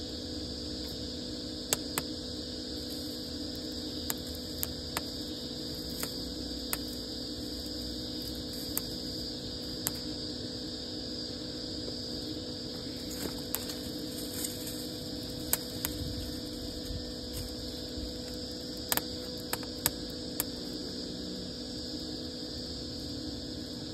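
Wood fire crackling in an outdoor fireplace, with scattered sharp pops at irregular moments, over a steady background hum.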